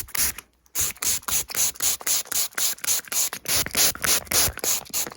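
Fast, rhythmic scratching strokes of an ASMR earwax-removal routine, about five a second, with a brief break about half a second in.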